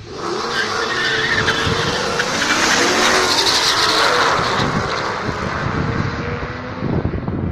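Two Ford V8s, a 2015 Mustang GT's 5.0 and a Shelby GT500KR's supercharged 5.4, launching at full throttle off a drag-strip start line with tyre squeal. The engine notes climb as the cars pull away, and the sound eases off near the end.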